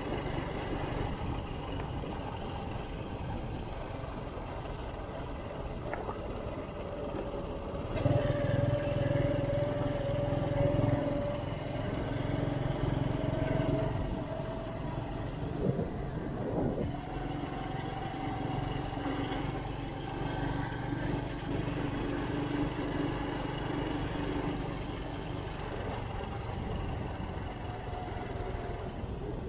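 Motorcycle engine running under way, its note drifting slowly up and down with speed. It gets louder about eight seconds in as the bike accelerates, then settles back to a steady cruise.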